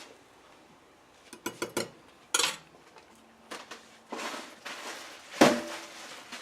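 Metal kitchen utensils and a cooking pot clinking and knocking: a scatter of separate clinks, the loudest a sharp knock about five seconds in.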